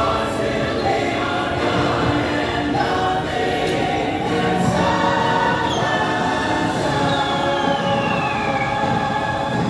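Ride soundtrack of a choir singing held chords over music, played through the attraction's speakers. Twice a high whistle-like tone glides downward over the singing.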